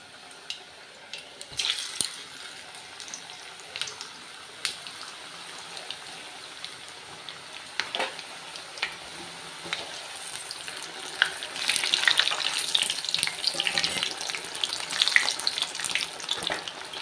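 Mung dal pitha deep-frying in hot oil in a kadai: a steady sizzle full of fine crackles that grows louder about two-thirds of the way through, with a few light clicks.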